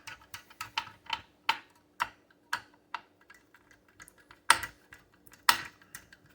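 Irregular clicks and light knocks of hands handling and fitting the plastic and metal parts of a desktop PC, with a few louder taps among them.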